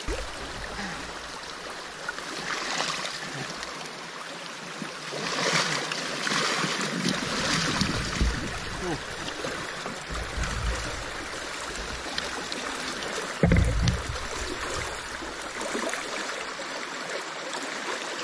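Fast-flowing river water rushing and splashing, louder around six to eight seconds in, with a low thump about three-quarters of the way through.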